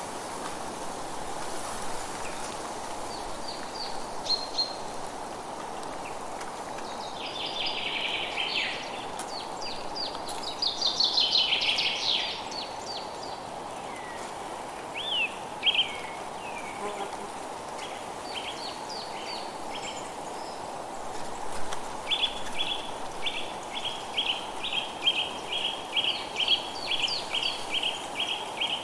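Forest ambience: several birds singing over a steady background hiss, with bursts of dense song in the middle and, in the last third, one bird repeating a short note about two to three times a second.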